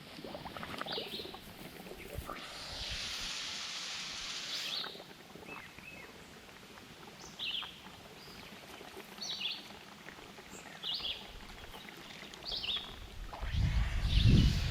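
A bird chirping, short high calls repeated about every second and a half, with a brief hiss early on and a low rumble near the end.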